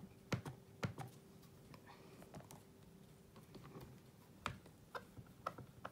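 Faint, scattered light taps and clicks, about seven over a few seconds: an ink pad dabbed onto a clear photopolymer stamp mounted on a Stamparatus plate, and the plastic plate being handled and swung over.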